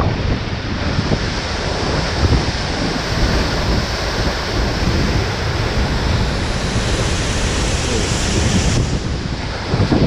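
Steady roar of Seljalandsfoss waterfall's falling water close by, with wind buffeting the microphone.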